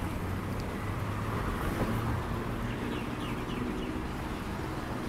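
Street ambience: steady traffic noise, with a few short bird chirps about three seconds in.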